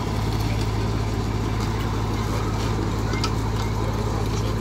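LF 16-TS fire engine's engine running at a steady speed, a constant low hum. A few faint light knocks sound over it.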